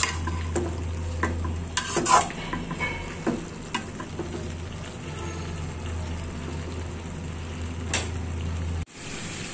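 Cabbage and potato bhaji frying uncovered with a light sizzle, while a metal spatula stirs and scrapes it around the pan, clinking against the metal now and then. A low steady hum underneath cuts off abruptly near the end.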